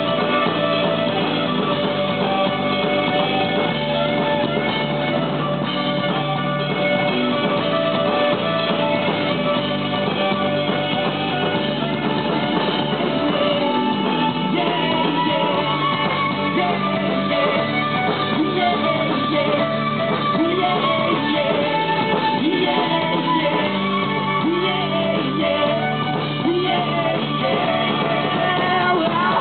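A live band playing: violin, guitar and drum kit.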